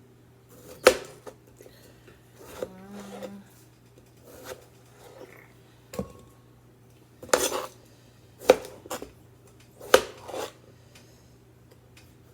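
Kitchen knocks and clinks of a knife and dishes as tomatoes are cut and handled: about eight separate sharp strikes, one every second or so.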